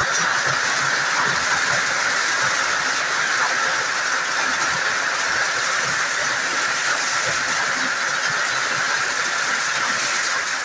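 Heavy hail pelting the ground and lawn during a hailstorm, a dense, steady hiss.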